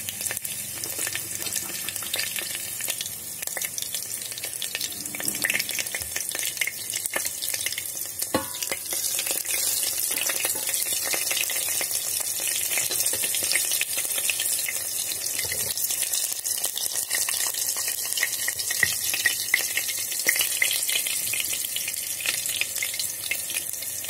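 Green chilies with mustard and cumin seeds frying in hot oil in an electric kettle: a steady high sizzle dotted with many small crackling pops.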